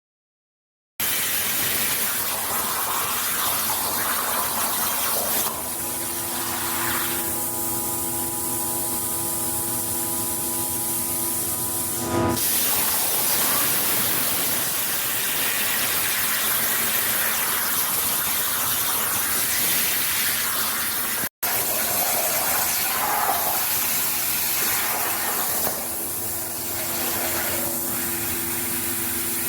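CNC machine running: a steady hissing rush with a steady multi-tone whine over it for several seconds in the first half and again near the end. The sound breaks off for a moment about 21 seconds in.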